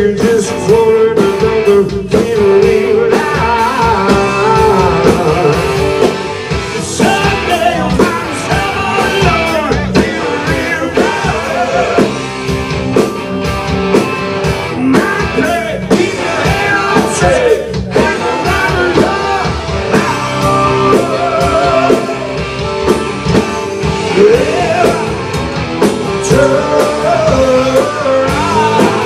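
Live rock band playing loudly, with distorted electric guitars, drum kit and a lead singer.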